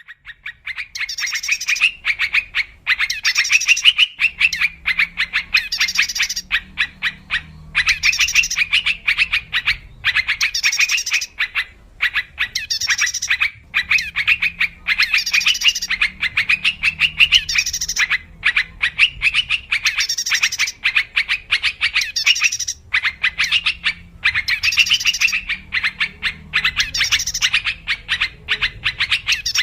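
Yellow-vented bulbul (trucuk) calling: phrases of fast chattering notes, each a second or two long, repeated over and over with short pauses between.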